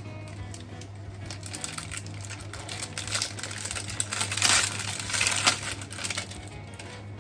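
Crinkling and crackling of packaging being handled, in irregular bursts that are loudest about four and a half seconds in, over a steady low hum.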